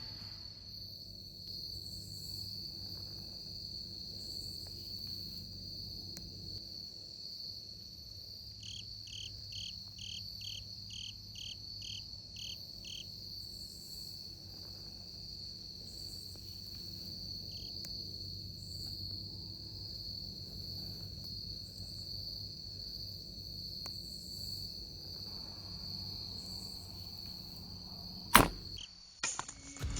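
Crickets and other insects making a steady high chirring in a quiet field edge, with a slower pulsed trill for a few seconds about a third of the way in. Near the end comes one sharp loud snap of a bow being shot, followed by a smaller knock.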